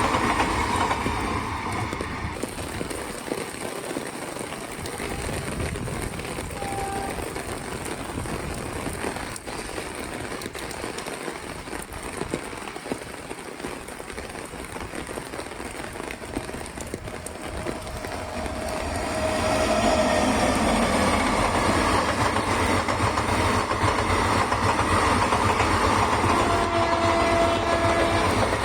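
A WAP-7 electric locomotive hauling an express train through heavy monsoon rain, with the rain hissing throughout. From about two-thirds of the way through, the train's rumble on the rails grows much louder as it passes close. A few short horn notes sound in between.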